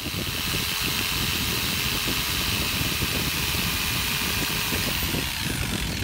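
Bosch electric jigsaw running steadily, its blade cutting through a thin sheet panel.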